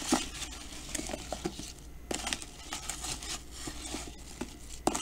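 A spoon stirring syrup-coated apple chunks in a plastic container: irregular scrapes and clicks with soft wet shuffling.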